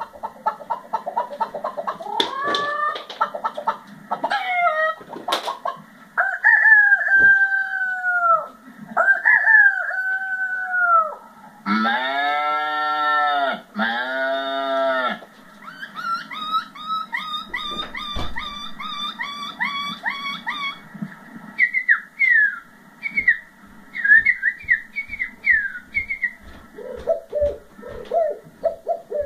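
A man imitating farm animals and birds with his voice, one call after another. It starts with chicken-like clucking and drawn-out crowing calls, then two long calls about a second and a half each, then quick chirps and whistles like a songbird.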